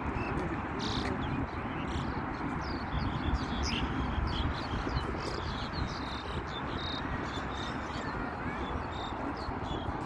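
Many small birds chirping in an irregular chatter of short high calls, over a steady low background rumble.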